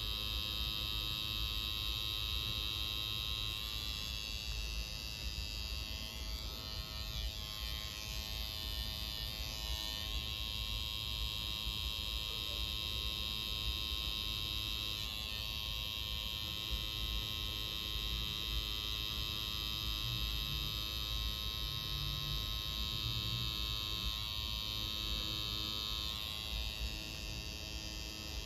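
Tattoo machine buzzing steadily as its needle works red ink into skin.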